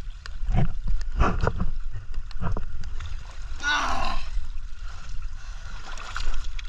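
Sea water splashing and sloshing as people dive and move through shallow water, over a steady low rumble. A little past halfway comes one short, loud hissing burst with a falling tone, the loudest thing here.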